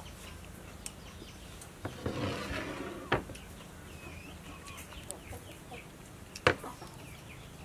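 A metal spoon and a china plate knocking on a wooden table as they are set down and moved: a few sharp knocks, the loudest about two thirds of the way through.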